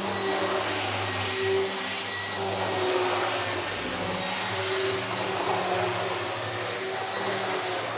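Hornby OO gauge class 47 model locomotive running fast with its controller turned well up: a steady electric motor whir with a wavering hum, its wheels running on the track.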